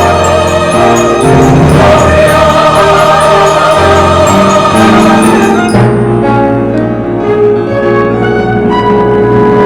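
Choir singing with orchestral accompaniment; about six seconds in the full sound thins out to sustained instrumental notes.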